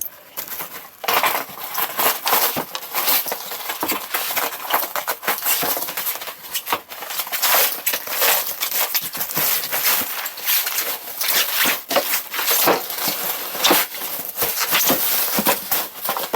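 Packaging being opened and handled by hand: continuous rustling and crackling with many small clicks and knocks.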